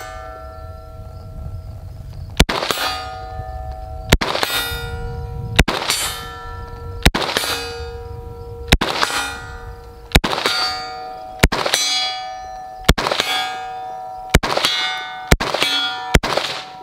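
Sig Sauer MCX Spear LT 5.56 rifle firing slow single shots, about eleven, roughly one every second and a half and quicker near the end. Each shot is followed by the ringing of a steel target being hit.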